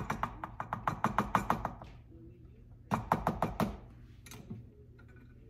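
Quick runs of sharp clinking taps, a utensil knocking against a measuring cup over a small saucepan while sticky corn syrup is scraped out: about eight taps a second for nearly two seconds, then a shorter run about three seconds in.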